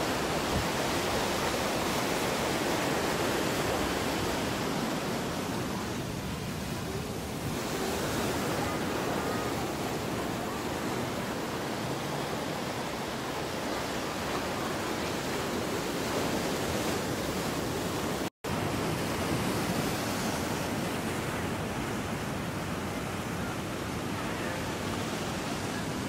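Ocean surf breaking and washing over a rock shelf: a steady rush of waves. The sound cuts out for an instant about two-thirds of the way through.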